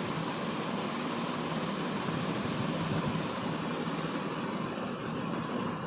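Gas stove burner flame hissing steadily under a pressure cooker, a constant, even rushing sound.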